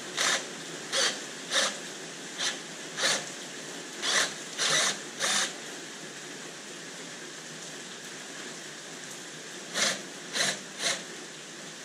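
Cordless drill run in short trigger bursts, about eleven in all, with a pause of several seconds before the last three. It is drilling the heads off the rivets that hold a 1979 Corvette's rear brake rotor to the hub.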